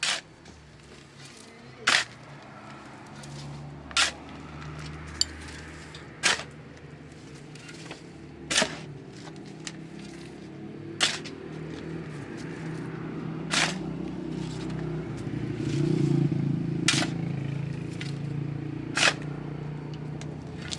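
Sharp knocks repeating at a steady pace, about one every two to two and a half seconds, over a low hum that grows louder around the middle.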